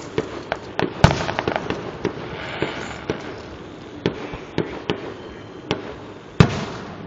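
Fireworks display: a rapid run of sharp bangs and cracks, with a stretch of crackling about two seconds in and one especially loud bang near the end.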